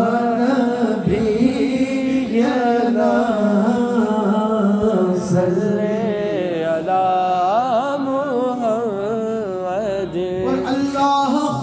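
Naat sung unaccompanied by a male voice: long, drawn-out ornamented phrases with the pitch wavering and sliding, over a steady low drone.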